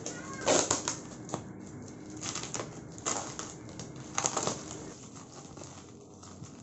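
Clear plastic wrapping on a cardboard parcel being pulled and torn by hand: irregular crinkles and sharp crackles, in bursts that thin out over the last couple of seconds.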